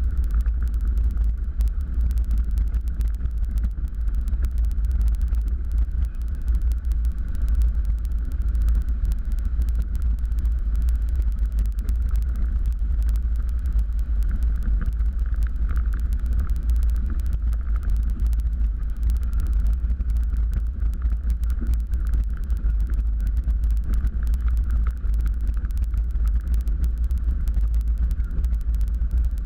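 Cozy Mk4's rear-mounted pusher engine running steadily at low power, heard from inside the cockpit as a deep, even rumble while the plane rolls over the dry lakebed.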